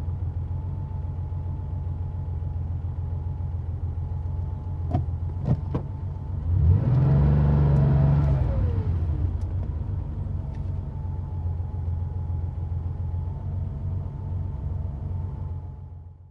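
1990 Porsche 911's air-cooled flat-six idling, with two sharp clicks about five seconds in, then one rev of the throttle that rises and falls back to idle over a couple of seconds.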